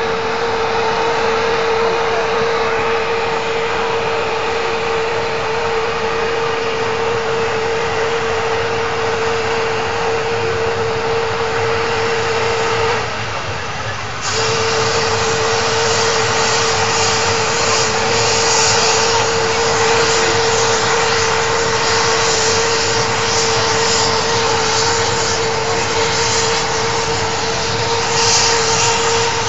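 Mil Mi-24 helicopter's twin turboshaft engines and rotor running on the ground before liftoff: a loud, steady rushing noise with a high, steady whine. The sound dips briefly about thirteen seconds in.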